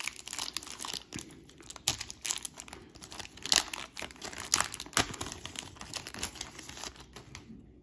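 Plastic wrapper of a 1990 Score baseball card pack crinkling and tearing as it is pulled open by hand, a run of irregular sharp crackles that dies away near the end.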